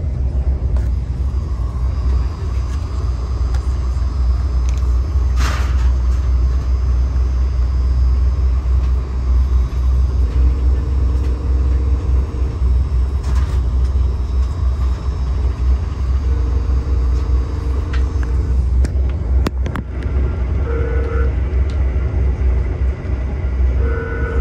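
Steady low rumble of an LRC passenger car running at speed, heard from inside the cabin. About ten seconds in, the GE P42DC locomotive's horn sounds over it, fainter than the rumble, in the grade-crossing pattern: two long blasts, a short one, then a final long blast still sounding at the end.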